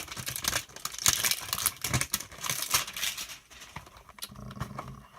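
Trading-card hanger box being opened by hand: crackling, crinkling and tearing of the cardboard and wrapper, with quick rustling clicks. It dies down to softer handling about three and a half seconds in.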